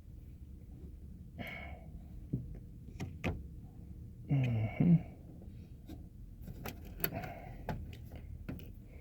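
Scattered small clicks and taps of lock pins and pinning tools being handled while a mortise lock cylinder is rekeyed, with a brief louder vocal sound about halfway through.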